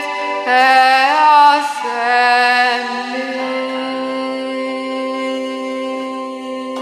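A singer finishing a psalm refrain over musical accompaniment: a few moving sung notes, then a final chord held for several seconds as the music fades.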